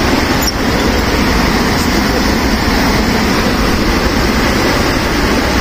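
Mountain stream cascading through a narrow rock gorge: a steady, loud rush of white water.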